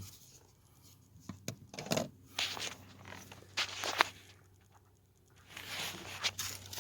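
Plastic door-panel trim and clips being worked loose by hand: scattered sharp clicks and short scrapes, then a longer stretch of scraping near the end.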